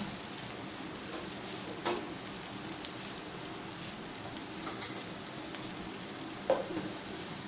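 Diced carrot, capsicum and cabbage sizzling steadily in hot oil in a wok while being stirred with a spatula, with a couple of short scrapes or taps of the spatula on the pan, about two seconds in and again near the end.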